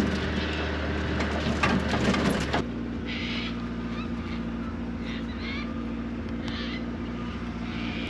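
A ute's engine running, heard from inside the cab, with a few clicks and rattles; about two and a half seconds in it cuts to birds chirping over a steady low hum.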